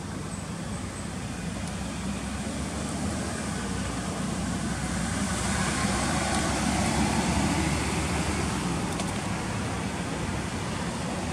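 Road traffic going by: a passing vehicle's engine and tyre noise swells to its loudest about six to seven seconds in, then eases off.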